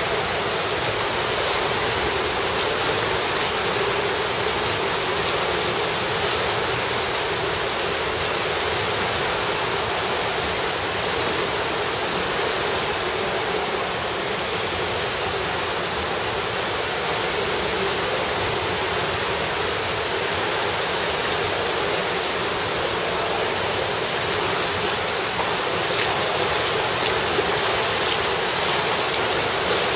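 Steady wash of pool water noise as a swimmer sculls face-down through the water, with a few faint sharp splashes in the last few seconds.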